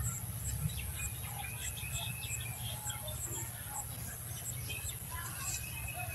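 Small birds chirping on and off over a steady low rumble, with a faint high ticking that repeats two or three times a second.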